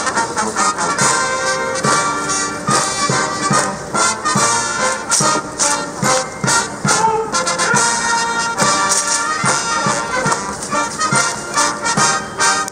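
Massed military band playing, brass and woodwinds over a steady drum beat.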